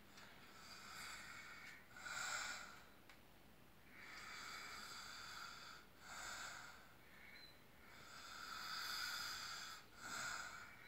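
Two people, a mother and her son, snoring in their sleep: slow, airy breaths swelling and fading, with a shorter, louder breath about every four seconds.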